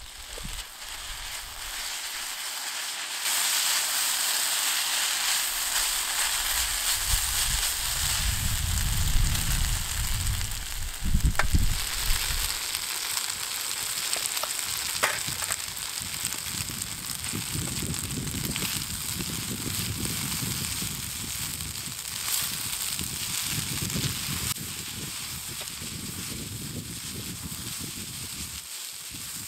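Yakisoba noodles with horumon (offal) sizzling in a frying pan while being turned with tongs. The sizzle swells about three seconds in and then runs steadily, with a couple of sharp clicks near the middle.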